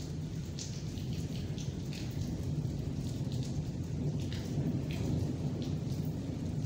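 Rain falling on wet paving, with many scattered sharp drop ticks over a steady low rumble.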